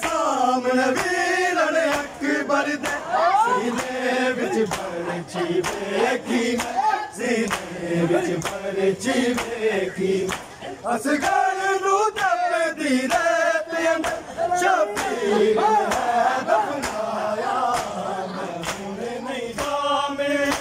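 A group of men chanting an Urdu noha, a Shia lament, in chorus, with rhythmic slaps of hands on bare chests (matam) throughout.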